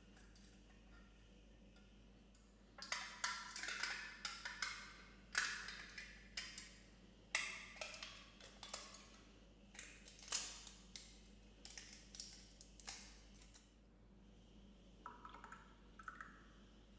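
Irregular clicks, taps and scrapes from a small container and utensil while lemon popping boba is added to the drink, starting about three seconds in and thinning out near the end.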